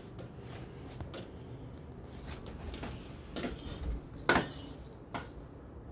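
A few short light clicks and knocks over a quiet background, the loudest about four seconds in.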